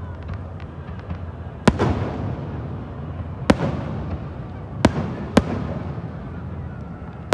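Aerial fireworks shells bursting in the sky: four sharp bangs spread over several seconds, the last two close together, each trailing off in an echo, over a steady low background noise.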